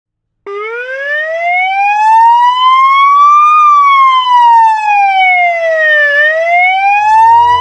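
Siren wailing in one slow cycle. It starts about half a second in, climbs steadily in pitch for about three seconds, falls for about two and a half, then starts to rise again.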